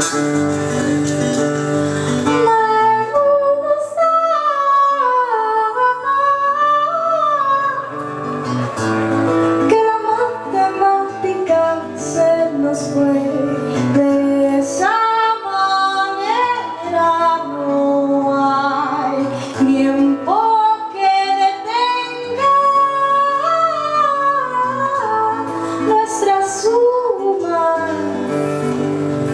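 A woman sings a freely improvised melody with long, sliding held notes, accompanied by a strummed and plucked acoustic guitar, performed live.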